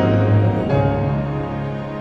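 Slow, soft background music with sustained chords; the chord changes under a second in.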